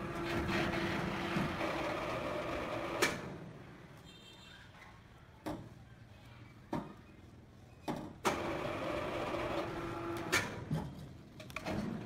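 A machine motor runs steadily with a held hum. It cuts off with a click about three seconds in, a few sharp knocks follow, and it starts again about eight seconds in.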